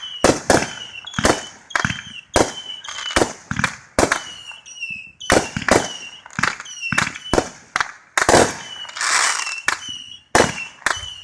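Fireworks going off in quick, irregular succession, sharp bangs about two a second, with a longer crackling burst about nine seconds in.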